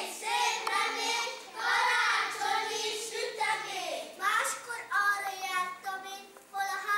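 Young children singing, with steady held notes in the second half.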